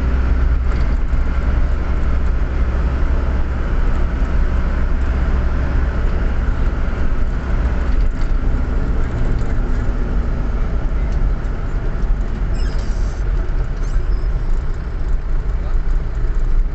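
Bus running on the road, a steady low engine and road rumble with no horn sounding.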